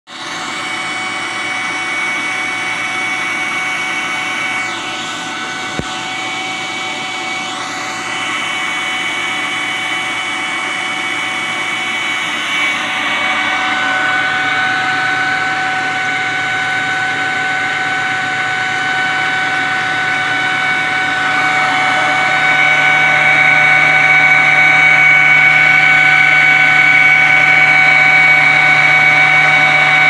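Electric inline duct fan of a homemade ice-chest air conditioner running: a steady motor hum and whine with several held tones, growing louder about halfway through and again a few seconds later. A single small click about six seconds in.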